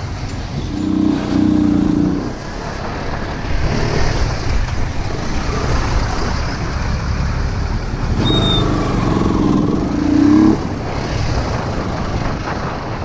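Motorcycle engine running at low speed through slow traffic, with a steady low rumble and wind noise on the microphone. Twice, about a second in and again from about the eighth second, a louder pitched note rises briefly; the second one cuts off suddenly.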